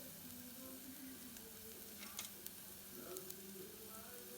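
Faint sizzling of a South Indian rasam tempering (dried red chilli, mustard seeds, ground black pepper, cumin and garlic paste, and curry leaves) frying in oil while it is stirred, with a couple of light clicks about halfway through.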